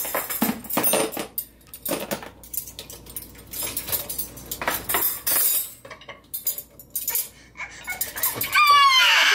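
Metal cutlery clinking and rattling in short irregular clatters as forks and spoons are pulled from a plastic dishwasher cutlery basket. Near the end a toddler starts a high, whining cry.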